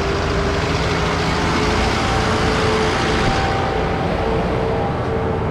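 Farm tractor running and moving, a steady engine noise with a faint wavering tone over it.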